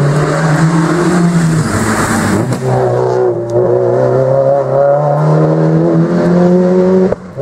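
Rally car engine running hard as the car powers away from a hairpin. Its note is steady at first, drops in pitch about one and a half seconds in, then climbs slowly as it accelerates.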